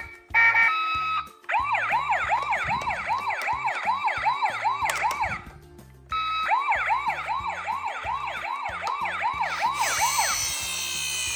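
Toy ambulance's electronic siren, a fast up-and-down wail of about three cycles a second, in two runs of about four seconds with a short break between. Background music with a steady bass line plays underneath, and a short electronic tone sounds at the start.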